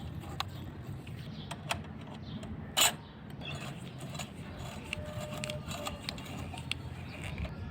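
Irregular small metallic clicks and taps of an alarm clock's parts being handled and fitted, with one louder, sharper click about three seconds in.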